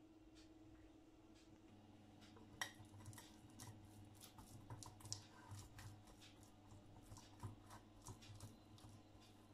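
Faint, irregular taps and scrapes of a pastry brush greasing the cups of a metal muffin tin, starting about two and a half seconds in, over a faint steady hum.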